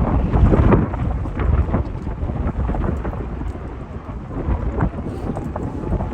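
Strong gusty wind buffeting the microphone: a loud, uneven low rumble with crackling gusts, strongest in the first second.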